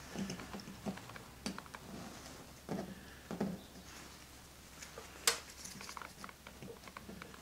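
Light handling noises in a small room: scattered soft taps and small clicks, with one sharper click about five seconds in.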